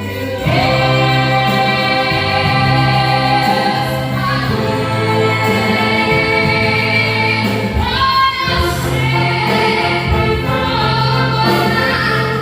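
A gospel band playing a worship song with group singing, the voices holding long notes over a steady bass.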